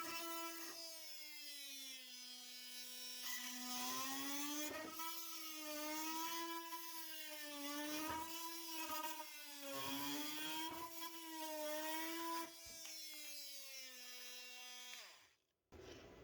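Milwaukee M18 Fuel oscillating multi-tool with a titanium multi-material blade plunge-cutting into a 2x8 board, a buzzing whine whose pitch sags and recovers over and over as the blade bites. It cuts off suddenly near the end.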